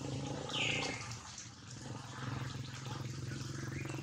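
A newborn monkey gives a single short, high squeak that falls in pitch about half a second in, over a steady low hum.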